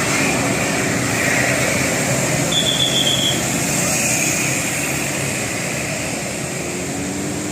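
A large bus running past on the road, its engine and tyre noise slowly fading, with a brief high tone near the middle.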